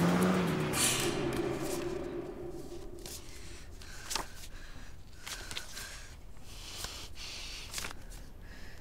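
A car driving off, its engine note curving and fading away over the first couple of seconds. Then a quiet room with a few short soft clicks, like paper being handled.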